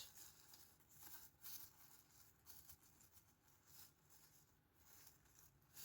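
Near silence with faint, irregular rustles and scratches of hands working potting soil around a plant in a small pot.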